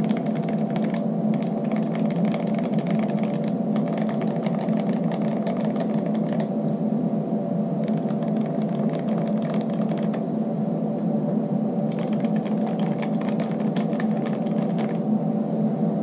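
Typing on a mechanical keyboard with lubed Kailh Box Black linear switches in a full aluminium case, the keystrokes coming in runs with short pauses between. A steady low hum runs underneath and is louder than the keystrokes.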